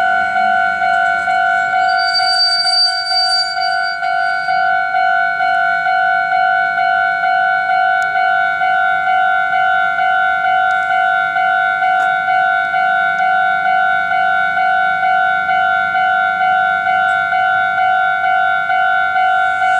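Japanese railway level crossing's electronic warning bell ringing in a rapid, even, unbroken repeating pattern: the crossing is active and signalling that a train is coming.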